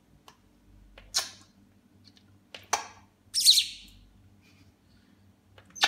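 African grey parrot making a few short chirps and clicks, with quiet gaps between them; the loudest, about three and a half seconds in, is a squeak that falls in pitch.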